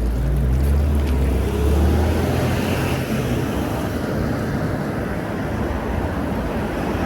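City street traffic: a motor vehicle's engine hums low and close for the first two seconds or so, then gives way to steady road noise.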